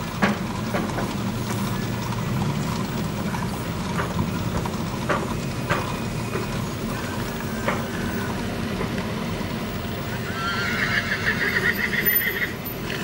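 Pickup trucks towing horse trailers driving past, engines and tyres running steadily, with a few sharp knocks from the trailers. Near the end a horse inside a trailer whinnies, one quivering call of about two seconds.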